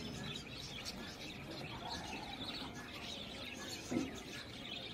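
Small birds chirping in the background, with a short low thump about four seconds in.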